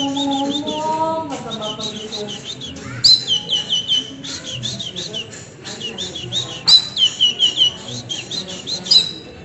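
Female songbird chirping in quick runs of short, down-curving high notes, in several loud bursts of song.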